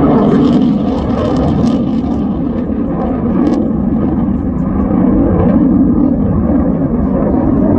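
Jet noise from an F-22 Raptor in flight, its twin Pratt & Whitney F119 turbofans making a loud, steady rumble that eases a little a couple of seconds in and builds again after about five seconds.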